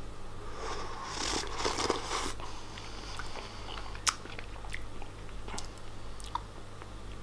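Close-up mouth sounds of a person eating a spoonful of gloopy flaxseed strawberry pudding. There is a stretch of wet mouth noise in the first couple of seconds, then a few light clicks, the sharpest about four seconds in, over a steady low hum.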